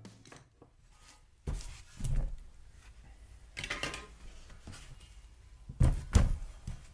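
A few scattered knocks and clanks of metal parts and tools being handled and set down, the two loudest close together near the end.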